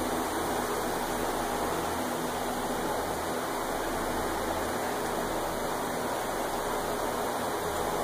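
Steady rushing noise with a faint low hum underneath, unchanging throughout.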